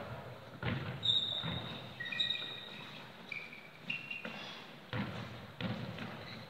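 Football being kicked and bouncing on a hard sports-hall floor: several sharp thuds that echo in the hall, mixed with short high squeaks of trainers on the floor.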